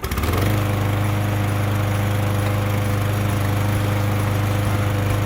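Small gas engine of a string trimmer catching and then running steadily at one even pitch.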